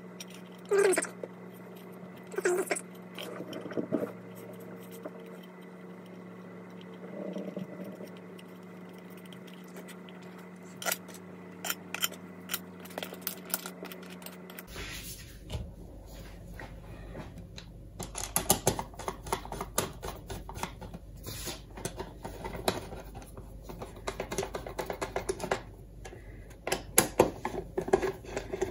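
Hands closing a plastic electrical enclosure: the lid and small screws clicking and knocking against the plastic box, then a screwdriver tightening the lid screws with a quick run of small clicks and scratches near the end.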